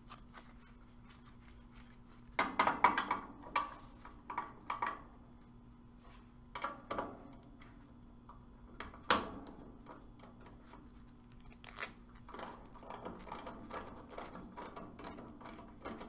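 Steel wrenches clicking and clinking against the brass service valves of an air-conditioning condensing unit as the valve stems are turned open to let refrigerant into the evacuated line set. There are irregular clicks, a sharp knock a little over halfway through, and a quick run of small ticks near the end.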